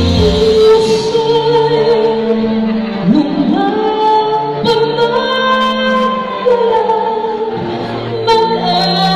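A woman singing a Tagalog love song into a microphone over a recorded backing track, holding long notes with vibrato, amplified through a PA in a large hall.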